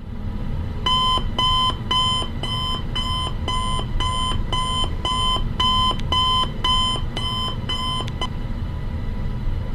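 Phone alarm beeping, about two beeps a second, over a steady low hum; the beeping stops abruptly about eight seconds in, as it is switched off.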